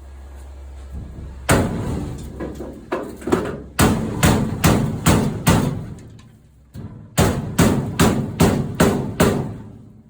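Hammer striking a sheet-steel floor pan backed by a dolly, panel-beating it into shape. One blow is followed by a few lighter taps, then two quick runs of sharp metal strikes about two or three a second with a short pause between.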